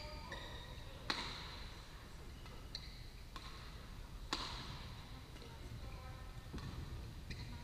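Badminton rackets smacking shuttlecocks on several courts, sharp hits that echo through a large sports hall, loudest about a second in and just past four seconds, with short high squeaks of players' shoes on the court mats in between.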